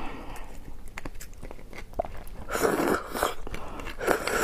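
Close-up eating sounds from a person eating braised beef bone marrow: wet mouth clicks and chewing, then two longer slurping sucks about two and a half and four seconds in as the marrow is drawn from the bone held to the lips.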